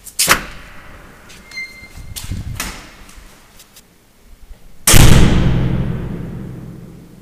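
Door being handled, with a sharp knock at the start, a few softer knocks and a brief squeak, then about five seconds in the door slams shut hard, its deep boom ringing out and dying away over about two seconds.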